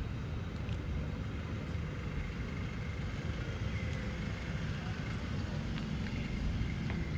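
Steady low outdoor rumble with no distinct events, with a faint thin high tone from about halfway through.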